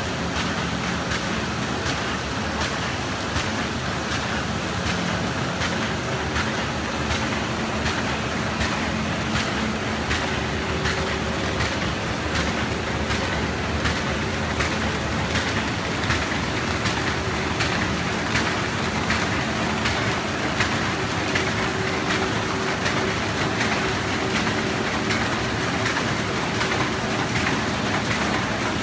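Square-bottom paper bag making machine with handle unit running: a steady, dense mechanical clatter with rapid regular clicks over a faint hum.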